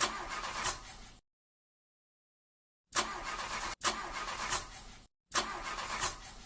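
Car engine cranking over and failing to start, heard as four short bursts, each cut off abruptly, with dead silence between them.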